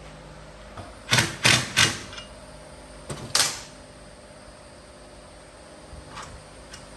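Three quick clattering knocks about a second in, then a fourth a couple of seconds later, over a low steady background hum.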